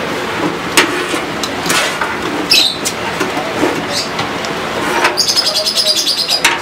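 Clicks, knocks and scrapes of computer hardware being handled as an IDE ribbon cable is fitted inside a desktop system unit, with a quick rattling run of small clicks near the end.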